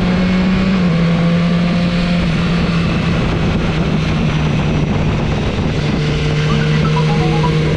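Motorcycle engine running at steady revs while riding, with a constant rush of wind and road noise.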